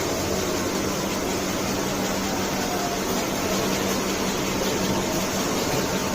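Nonwoven tissue folding and cutting machine running: steady mechanical noise with a constant low hum.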